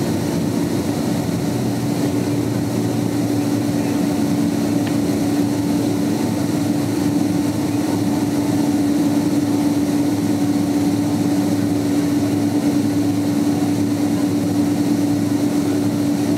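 Steady cabin noise of a Boeing 767 taxiing, heard inside the cabin: its jet engines run at low taxi power, a constant hum with one steady droning tone on top.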